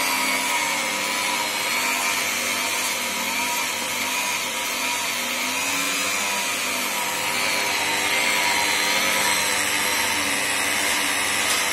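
Electric motor of a homemade dough mixer running steadily as its kneading hook turns dough in a steel bowl: a steady whine that wavers slightly in pitch over a constant hiss.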